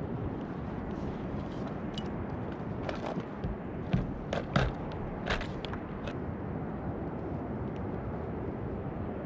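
Steady rush of wind and sea water on a sit-on-top fishing kayak, with a handful of sharp clicks and knocks from about two to six seconds in as the angler handles his spinning rod and reel.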